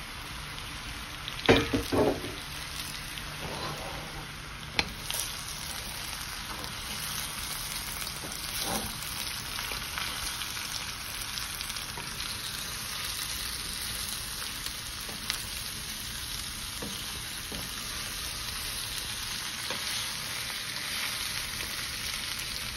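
Potatoes and onions sizzling in a wok, stirred with a wooden spatula. A few loud knocks come about a second and a half in, with fainter clicks later.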